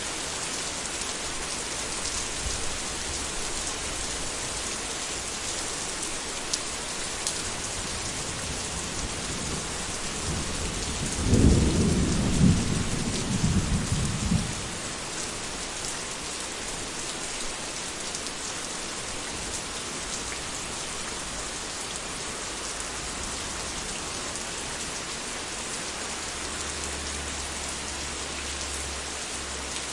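Steady heavy rain falling, with a clap of thunder about eleven seconds in that rumbles low for some three seconds and then fades back into the rain.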